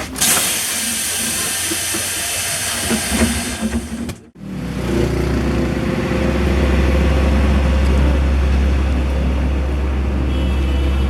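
A loud steady hiss of air escaping from the bus's compressed-air system for about four seconds. After a sudden break, the bus engine runs steadily with a low, even drone.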